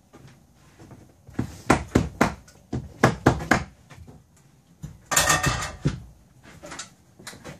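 Hand staple gun driving staples through sound-dampening felt on a wall: a quick run of about nine sharp snapping strikes, a longer, noisier clatter about five seconds in, then a few lighter clicks.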